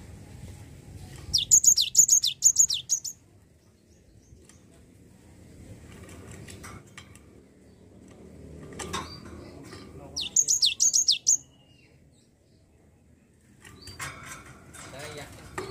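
Cinereous tit (gelatik batu) singing in three loud bursts, each a quick run of about half a dozen sharp, high notes that fall in pitch, about a second in, about ten seconds in, and again at the very end.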